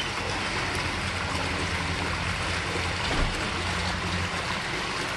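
Steady splashing rush of a swimming pool's water-feature jet falling into the pool, over a low steady hum.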